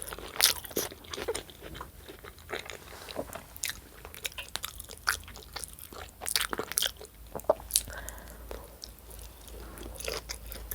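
A person chewing and biting food close to the microphone, with irregular wet mouth clicks.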